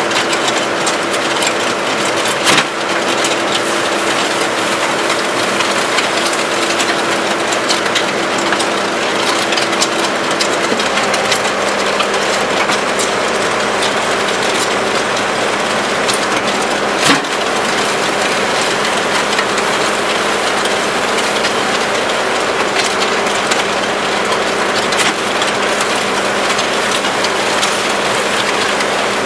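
Skid steer engine running with the Danuser MegaMixer's hydraulic steel auger turning through wet concrete in the bucket: a loud, steady mechanical din. Sharp knocks come about two and a half seconds in and again around seventeen seconds. The running note shifts about eleven seconds in.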